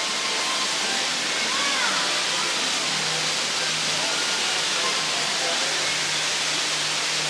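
Steady rush of running water, with indistinct murmur of voices in the background.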